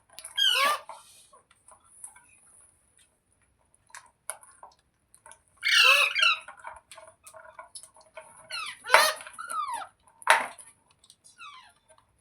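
Parrot giving loud, harsh screeching calls, each falling in pitch: one about half a second in, then a cluster of three in the second half.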